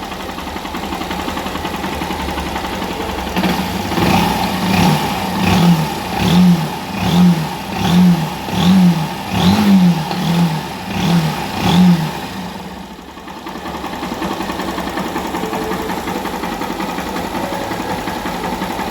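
Freshly rebuilt Honda CG 160 air-cooled single-cylinder four-stroke engine running, quiet after a new piston and cylinder. A few seconds in, the throttle is blipped about ten times, a bit under a second apart, and then it settles back to a steady idle.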